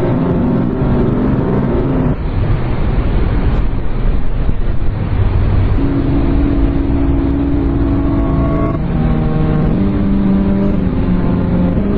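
Fan-made emergency alert alarm: a loud, rough rumble with low alarm tones over it. The tones drop out about two seconds in, leaving the rumble; a steady tone comes back about six seconds in and from about nine seconds changes pitch in steps roughly once a second.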